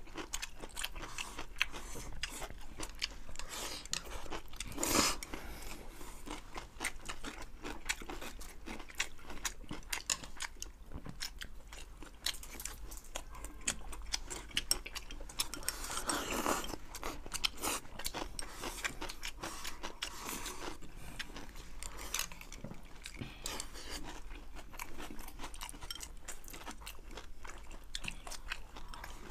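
Close-up eating sounds of two people: steady chewing and biting with crunchy bites, many quick mouth clicks and a few louder, longer smacking moments.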